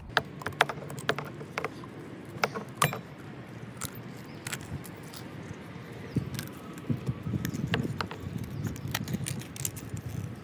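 Kitchen shears snipping through the rib bones along a raw whole chicken's backbone: a string of sharp, irregular clicks and crunches.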